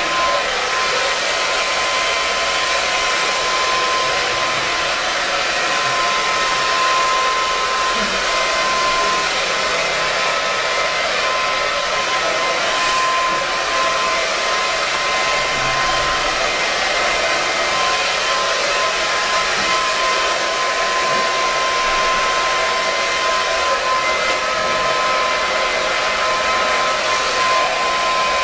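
A blow dryer running steadily: a constant rush of air with a steady whine on top.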